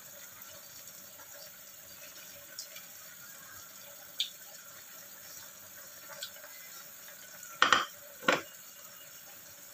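Quiet kitchen sounds: a faint steady hiss with a few light clicks, then two sharp knocks about half a second apart near the end.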